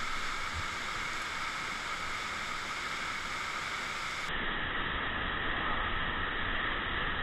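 Steady rush of falling water in the canyon, an even noise with no breaks. About four seconds in it turns duller, losing its hiss.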